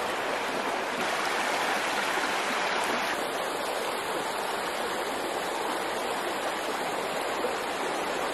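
A shallow, rocky creek running: a steady rush and babble of water over stones, whose tone shifts slightly about three seconds in.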